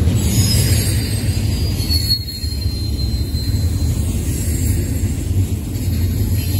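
Intermodal freight cars rolling past: a steady low rumble of steel wheels on rail, with a faint thin wheel squeal slowly falling in pitch.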